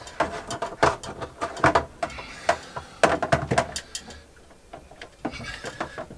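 Irregular clicks and knocks of plastic fittings being handled as tubing is worked onto a plastic fermenter bucket, with a quieter gap about four seconds in.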